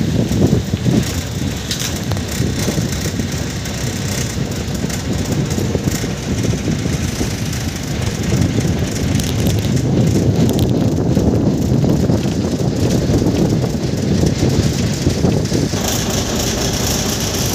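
Steady low rumble of airport apron background noise, with a higher hiss coming in near the end.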